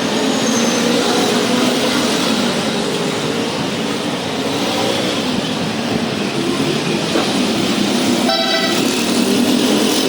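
Steady loud noise with a short vehicle horn toot about eight seconds in.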